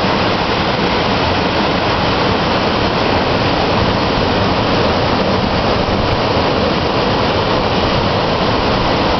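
Ocean surf breaking and washing ashore, a steady loud rush of noise.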